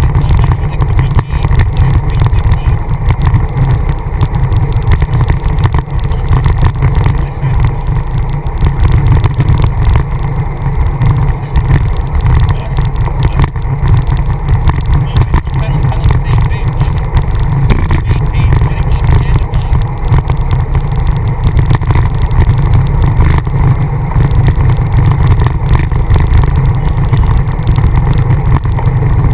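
Wind rumbling loudly and unevenly on the microphone of a camera mounted on a road bike riding at speed, a constant low buffeting with a fainter hiss of road noise above it.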